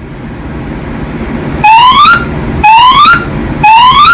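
Fire alarm evacuation speakers sounding three short rising whoop tones, each about half a second long and about a second apart, starting about a second and a half in: the three-pulse fire evacuation signal. A low steady background hum comes before the tones.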